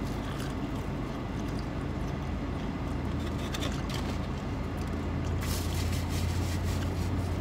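Steady low hum of a car running, heard from inside the cabin, with faint crunches and clicks of a bite of crispy fried chicken being chewed. A louder hiss joins about five seconds in.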